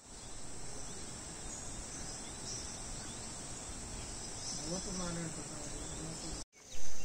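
Outdoor ambience with insects making a steady high-pitched hum, and a faint distant voice briefly about five seconds in.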